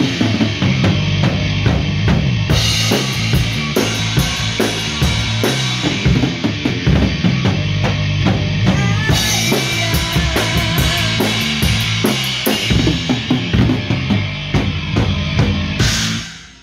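Live rock music on electric bass guitar and drum kit: a steady kick-and-snare beat under a moving bass line, with crash cymbals washing over it in stretches. Near the end a final cymbal crash ends the drumming and the sound drops away.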